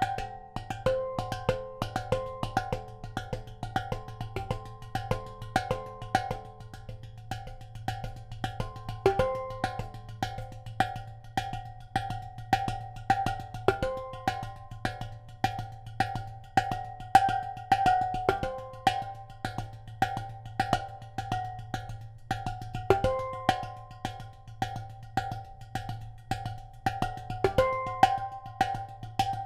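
Healing Notes steel pan drum played with bare fingers and palms: a quick, even stream of struck, ringing metallic notes, one middle note repeated as an ostinato while higher and lower notes are picked out around it.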